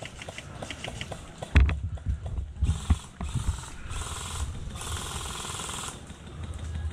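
Airsoft electric gun (AEG) firing on full auto: four buzzing bursts in the second half, the last about a second long, after a sharp knock about a second and a half in.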